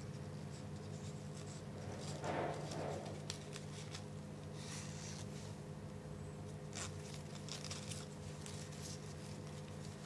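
Stiff scrapbook-paper strips rustling and ticking softly as they are threaded over and under one another by hand. A steady low hum runs underneath.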